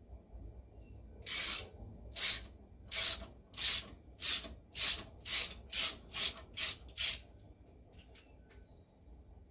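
Hand file rasping on metal, about eleven back-and-forth strokes that speed up toward the end, on the big-end bearing parts of an International Type M engine during a rod-bearing shim adjustment.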